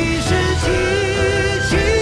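A Chinese-language ballad sung with vibrato over sustained instrumental accompaniment.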